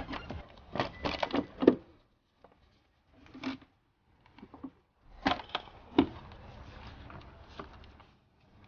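Irregular knocks and clicks of hand tools and plastic parts being handled while working on a car's intake tube and air box, in short clusters with near-silent gaps between them.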